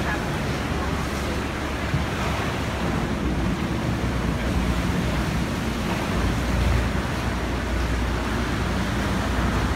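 Steady rush of sea water surging in a sea cave, with wind buffeting the microphone and a low rumble that swells about six seconds in.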